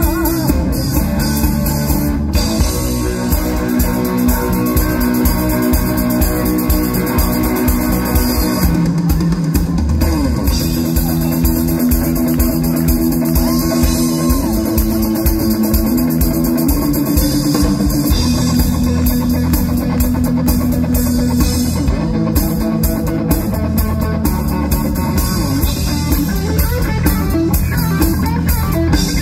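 Live rock band playing an instrumental passage with no vocals: guitar over a steady drum-kit beat.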